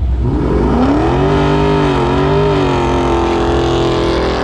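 Dodge Charger's engine revved hard and held at high revs during a burnout, its rear tyres spinning. The engine note climbs in the first second, then holds high with small wavers.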